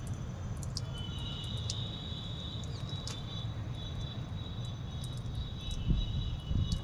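Steady, high-pitched insect chirring that starts about a second in, over a low rumble, with two dull thumps near the end.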